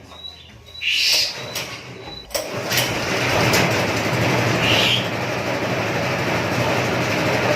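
Honda GX160 single-cylinder four-stroke engine on a rice thresher starts suddenly about two seconds in, then runs steadily.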